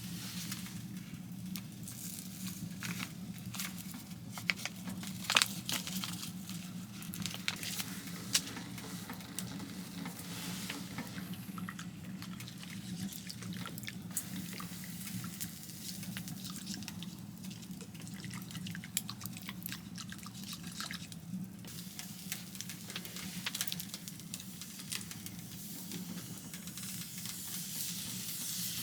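Small wood fire crackling, irregular sharp snaps over a steady low hum.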